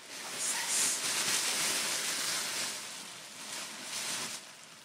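Tissue paper rustling and crinkling as a gift is unwrapped by hand, easing off near the end.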